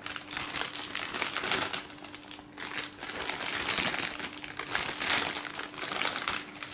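Clear plastic bag crinkling as it is handled and turned over, the plastic model-kit sprues inside shifting with it: irregular rustling with a brief lull about two and a half seconds in.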